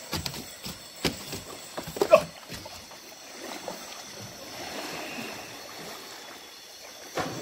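Knocks and thumps on a small boat's hull, with water splashing around it; the loudest knock comes about two seconds in, followed by a steady wash of water and another knock near the end.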